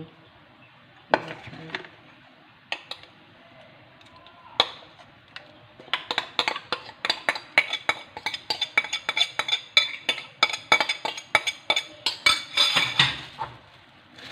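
Metal utensil clinking against a bowl. A few scattered knocks come first; then, from about six seconds in, a fast run of ringing clinks, several a second, as an ingredient or sauce is stirred or mixed.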